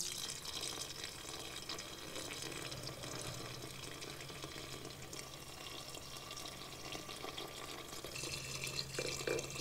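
Rum agricole pouring from a bottle in a steady stream into a glazed stoneware rumtopf, splashing and fizzing onto sugared fruit in its syrup. The pour begins abruptly.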